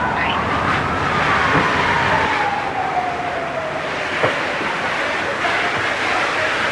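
An emergency-vehicle siren that rises briefly and then slides slowly down in pitch over about three seconds, heard over a steady rushing vehicle noise. There is one sharp click a little past four seconds in.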